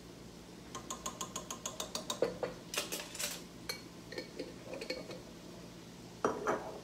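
A plastic measuring spoon tapping and scraping in a glass jar of minced garlic, about six quick clicks a second. Then a ring of measuring spoons clinks as it is set down, and the glass jar knocks on the counter near the end.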